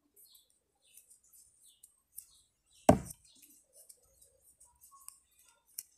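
A single dull knock about three seconds in, against faint, very high ticks and chirps.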